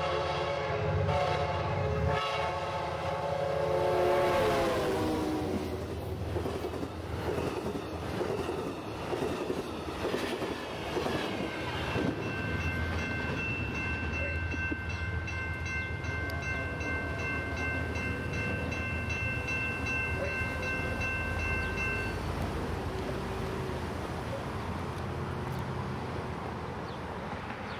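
Passenger train's horn sounding, its pitch dropping as the locomotive passes about four seconds in, followed by the rumble and clatter of the train going by. From about twelve seconds in a steady high ringing tone holds for about ten seconds, then stops.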